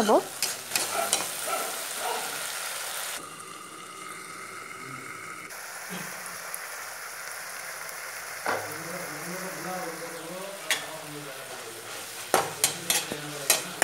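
Chinese mallow greens sizzling in a wok as a metal spatula stirs them. The sizzle is strongest in the first few seconds and then quieter, with a cluster of sharp scrapes and taps of the spatula against the pan near the end.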